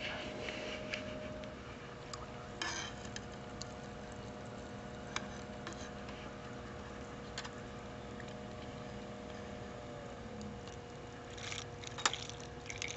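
Alphacool D5 water-cooling pump running in a test loop with a faint, steady hum. About ten seconds in, part of the hum shifts and drops away as the pump's speed is turned down toward its lowest setting. A few light clicks and taps are heard along the way.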